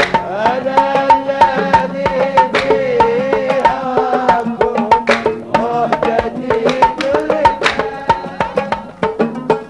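Kuwaiti sawt music: an oud and a wavering melody line over a dense, driving rhythm of mirwas hand drums and sharp handclaps.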